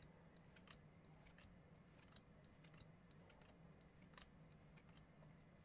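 Faint, irregular clicks and light swishes of baseball trading cards being slid off a hand-held stack one at a time, over a low steady hum.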